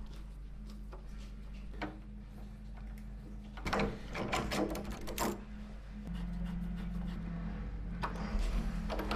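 Metal clicks and rattles of a door handle and latch being fitted and worked, in two bursts, over a steady low hum.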